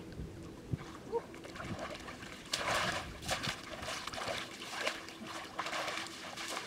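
Splashing and sloshing in shallow muddy floodwater from legs wading through it and a cast net being dragged through it. The splashes come thicker and louder about two and a half seconds in.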